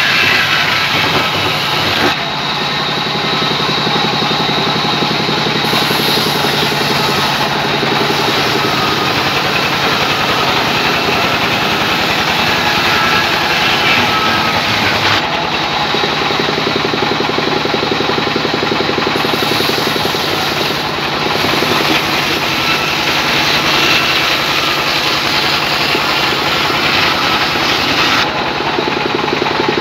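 Belt-driven vertical band sawmill running steadily while rain tree timber is fed through its blade. It makes a loud continuous machine noise whose character shifts a few times as cuts begin and end.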